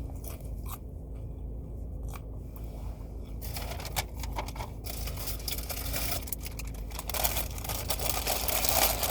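Takeout food packaging being handled: rustling, scraping and short clicks of containers and wrappers, growing louder about halfway through, over the steady hum of a car engine idling.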